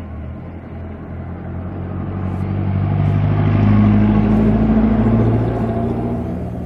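A motor's steady low hum and rumble, growing louder toward the middle and easing off near the end.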